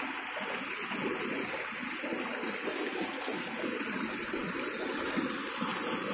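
Shallow river water rushing and splashing over rocks in small rapids: a steady rush of flowing water that grows slightly louder.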